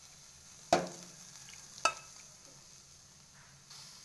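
Metal tongs clink twice, about a second apart, against a wire grill stand as chicken pieces are arranged on it over a charcoal and gas flame, under a faint steady sizzle.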